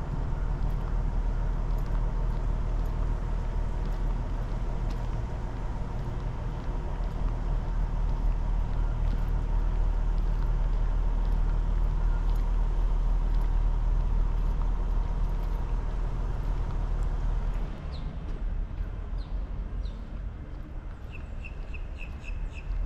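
A motor vehicle engine running steadily: a low hum with a faint steady whine above it. It drops away sharply about eighteen seconds in. Near the end comes a quick run of about five high chirps.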